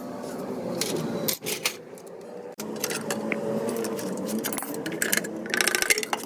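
Metal hand tools and engine parts clinking and rattling against each other, with a quick cluster of sharp metallic clicks near the end.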